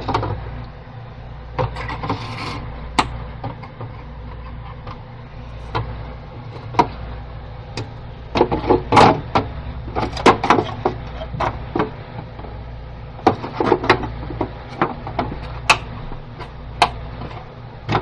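Plastic parts of a Petmate pet water fountain clicking and knocking as they are handled and pressed into place, in scattered clusters that are busiest in the second half. A steady low hum runs underneath.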